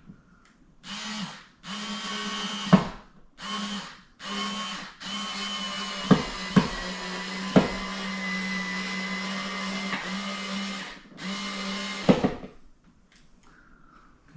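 Cordless drill driving a screw into a wooden wall stud, run in short trigger bursts and then one long run of about six seconds, with a few sharp clicks.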